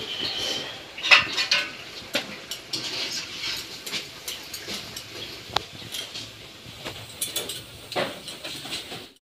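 Steel cooking pots and a wok being handled and stirred: irregular clinks, knocks and scrapes of metal, with a few sharper clanks.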